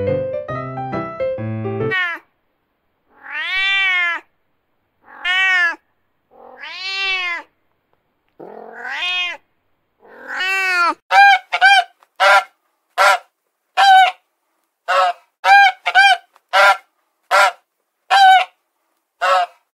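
Piano music ends about two seconds in. A domestic cat then meows five times, each long meow rising and falling in pitch. From about eleven seconds a black swan gives a quick series of about fourteen short, sharp calls.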